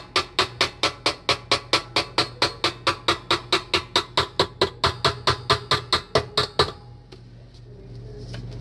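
Rapid, even tapping with a ringing, woody pitch, about five strokes a second, which stops suddenly near the end and leaves a low hum.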